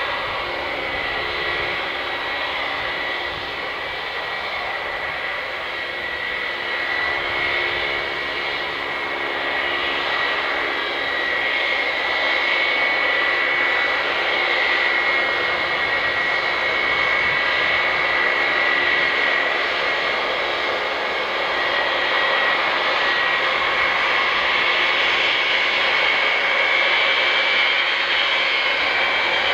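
Four Pratt & Whitney TF33 turbofans of an E-3A Sentry AWACS running at taxi power: a steady jet rumble with a high whine, growing a little louder as the aircraft taxis and turns toward the listener.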